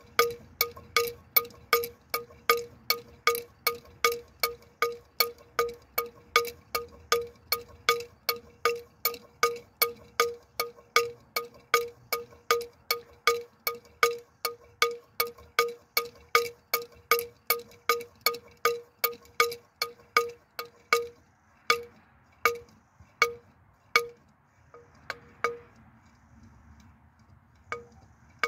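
Josephsglocke, a hard cast-iron bell cast by Eisenwerk Franz Weeren in 1922, swinging with its clapper striking about twice a second in a steady peal. Near the end the strikes grow sparse and irregular, then stop as the bell swings down to rest.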